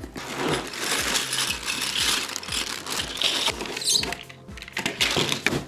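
Cardboard box being opened and black plastic toy workbench parts slid out of it: a rough scraping and rustling of cardboard and plastic for most of the first four seconds, then a few sharp knocks near the end, over background music.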